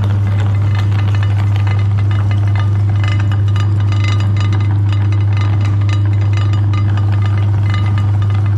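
Electric meat grinder's motor running with a strong, steady hum and irregular rattling and clinking over it.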